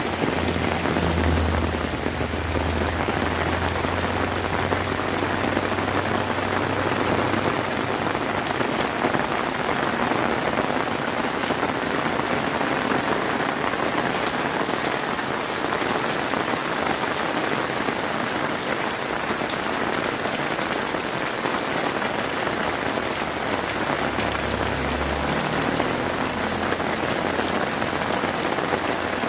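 Heavy rain pouring steadily onto surfaces, a dense, even hiss of drops. A low rumble sits under it for about the first seven seconds and comes back briefly near the end.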